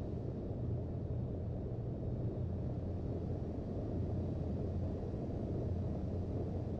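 Cabin noise of a Boeing 737-800 taxiing after landing: a steady low rumble with a faint hum, even in level.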